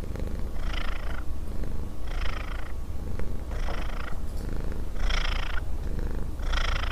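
Domestic cat purring: a steady low rumble with a raspy, breathy pulse about every one and a half seconds.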